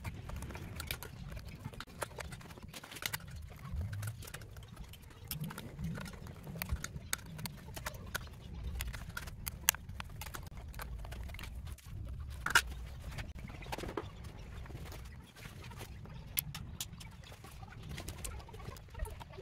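Irregular sharp clicks and knocks of a hard plastic cover being pried and worked off the battery management board of an electric-car battery pack, over a steady low rumble. The loudest two knocks come about ten and twelve and a half seconds in.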